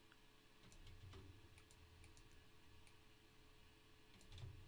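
Faint, scattered clicks of a computer mouse and keyboard, a handful of light clicks spread over a few seconds with a small cluster near the end, over a faint low hum.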